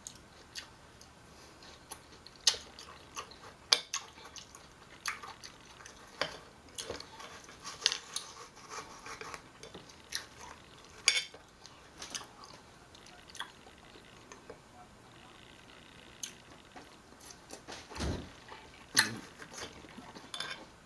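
A small knife clinking and scraping against a glass dish as watermelon is cut into pieces: irregular sharp clicks a second or more apart, with wet chewing between them. A dull thump near the end.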